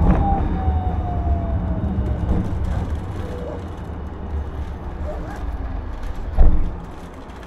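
Hiroshima Electric Railway streetcar slowing to a stop, heard from inside: a thin whine falls steadily in pitch over the first couple of seconds while the low rumble of the wheels on the rails dies away. A single loud thump comes about six and a half seconds in as it comes to rest.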